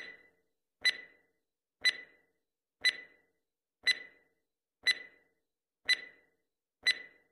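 Countdown-timer sound effect: a stopwatch ticking about once a second, each tick a sharp click with a short bright ring, marking the seconds given to answer.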